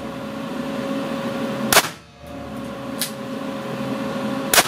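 Two shots from a Weihrauch HW5 T .22 revolver firing Mini-Mag .22 LR rounds, a hotter load, about three seconds apart, each a sharp crack with a short ring. A fainter crack falls between them, over a steady background hum.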